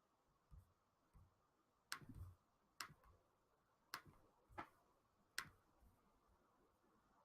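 Faint, sharp computer mouse clicks, five of them irregularly spaced about a second apart from about two seconds in, with a couple of softer thumps before them.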